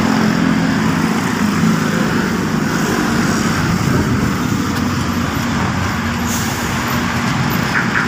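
A motor vehicle's engine running close by, a steady rumble mixed with road traffic noise.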